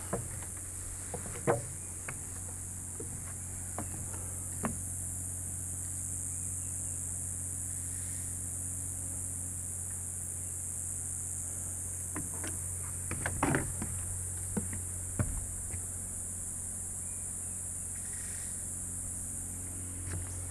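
Insects in a steady, high-pitched chorus, over a steady low hum. Scattered sharp knocks sound now and then, the loudest about a second and a half in and a cluster a little past the middle.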